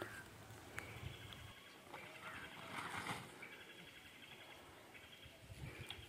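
Faint open-air field ambience with distant birds chirping in short high trills, and a soft rustle about three seconds in.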